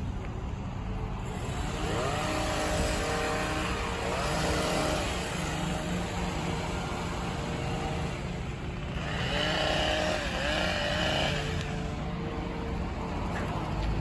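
Bucket truck engine running steadily, with the small engine of a handheld power trimmer revving up in two spells of cutting, one starting a couple of seconds in and another about two-thirds of the way through, its pitch rising each time it speeds up.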